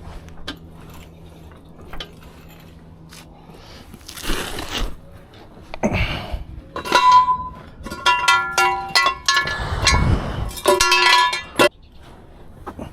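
Hard metal objects clinking and rattling against each other, with short ringing tones, in a busy cluster from about seven seconds in until shortly before the end. Before it come a couple of brief scraping, rustling noises.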